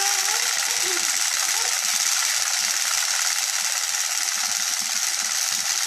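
Battery-powered toy fish's motor and gears whirring with a steady mechanical buzz as the fish flops about on the carpet.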